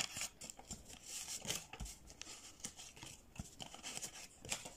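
Banknotes and the plastic envelope pockets of a ring binder rustling and crinkling as they are handled, in irregular bursts with small clicks.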